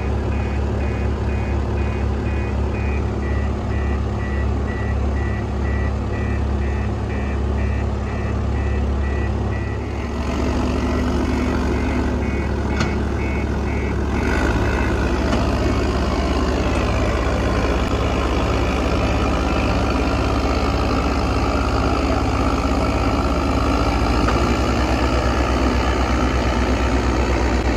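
Diesel engine of a JCB Loadall telehandler working under load with a reversing alarm beeping steadily. The alarm stops about halfway through and the engine note rises and holds as it pulls the stuck tractor back.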